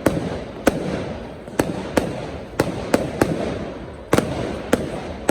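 Display fireworks going off: a rapid, irregular string of sharp bangs and cracks, about two or three a second, with rumbling echoes between them.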